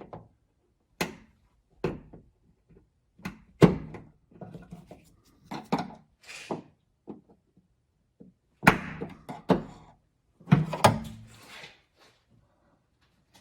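Irregular sharp clicks and knocks of a plastic trim pry tool working a plastic retaining clip loose from a trunk lid garnish, with the trim piece knocking as it is pushed and levered.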